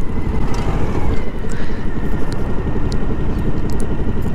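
Suzuki motorcycle ridden slowly through sand: the engine runs at low speed under a steady rumble of wind on the on-board microphone, with a few faint ticks.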